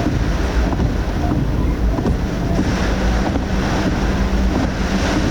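Typhoon wind and rain buffeting a car, picked up by its dashboard camera: a loud, steady rushing noise heaviest in the low end, with scattered faint ticks and a steady low hum that comes in about halfway through.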